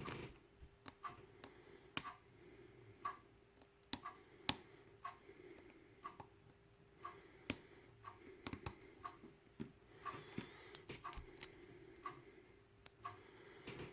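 Faint, irregular metallic clicks and taps of a small hook pick working the pin stack of an ABUS padlock under tension, with a fainter, even ticking about twice a second.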